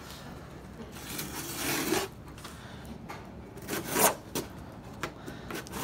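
Scissors cutting through the packing tape and cardboard seam of a box. One drawn-out cut grows louder over about a second, followed a couple of seconds later by a few short, sharp snips and scrapes.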